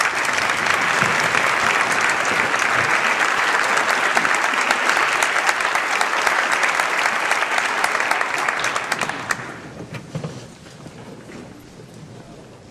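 A concert hall audience applauding the conductor's entrance at the start of a concert. The clapping is loud and steady, dies away about nine seconds in, and leaves only faint scattered knocks and shuffling.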